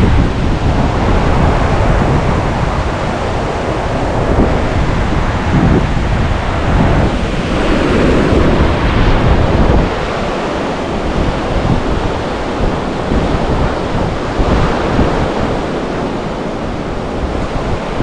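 Sea waves washing onto a beach, with strong wind buffeting the microphone. The deep wind rumble eases about ten seconds in.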